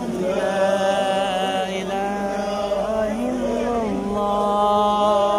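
A man's voice chanting an Islamic recitation for the Friday prayer, holding long notes that slide slowly between pitches.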